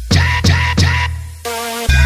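Bass-heavy electronic DJ sound-check music: three punchy kick hits with falling pitch a third of a second apart, a short gap, then a deep sustained bass note coming in near the end.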